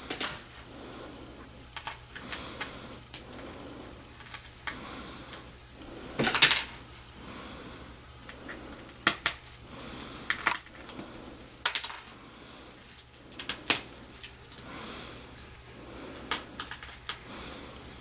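Small Phillips screwdriver working the screws out of a laptop screen frame: irregular sharp clicks and light metallic clinks of the tool on the screw heads and of the small screws being handled, a few louder clinks scattered through.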